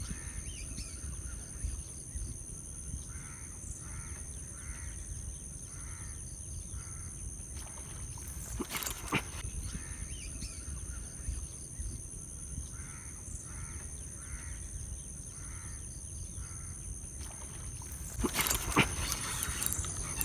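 Crows cawing in two runs of several short, evenly spaced caws. Under them are a low rumble of wind on the microphone and a steady high-pitched whine, and a few sharp clicks come near the end.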